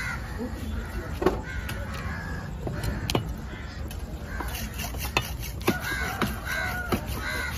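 Crows cawing again and again, with a quick run of caws in the second half, over sharp knocks from a heavy knife cutting fish on a wooden chopping block.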